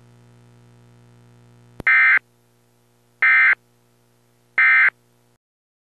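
Emergency Alert System end-of-message signal: three short, identical buzzing digital data bursts a little over a second apart, marking the end of the alert. A faint steady hum lies beneath, with a click just before the first burst.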